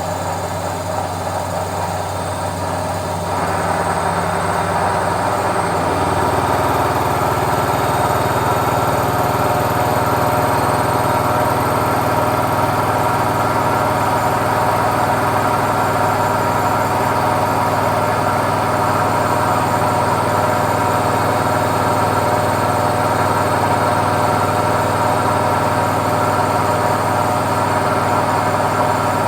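Indesit washing machine running, a steady mechanical hum of motor and drum. It gets louder about three seconds in, and a lower rumble joins about six seconds in, then it holds steady.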